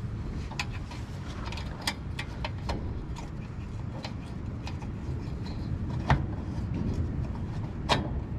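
Scattered light metal clicks and knocks from pinning a snow plow mount onto an ATV, over a low steady rumble; the sharpest knocks come at about two, six and eight seconds in.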